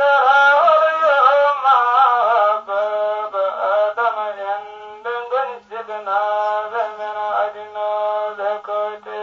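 A voice chanting a slow melodic line, ornamented and wavering over the first few seconds, then holding long steady notes with short breaks. The recording sounds thin, with little low end.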